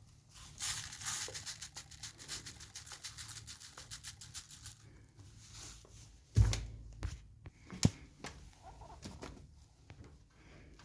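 Clattering and knocking from a coffee machine being handled: a rapid rattling clatter for about four seconds, then a heavy thump about six and a half seconds in and a sharp click a little later.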